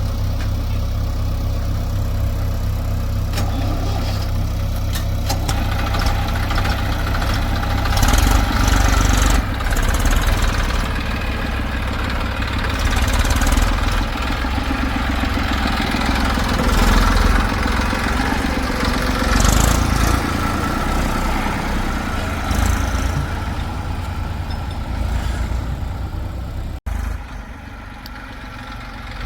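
Diesel engines of a backhoe loader and tractors running: a steady low drone that rises in several surges as the loader works, with rattling noise at the peaks. Near the end it drops abruptly to a quieter idle.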